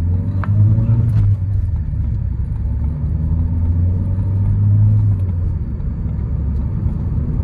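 Ford Courier's 1.5-litre, 100 hp engine pulling at full throttle during a 0–100 km/h acceleration run, heard from inside the cabin; its note drops briefly about a second in and again about five seconds in, as at gear changes. The car was launched at low revs, which the driver feels made the run slow.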